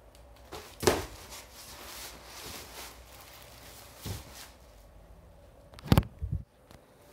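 Cardboard packaging being handled and pulled from a box: rustling and scraping with a few knocks, the loudest a quick double knock about six seconds in.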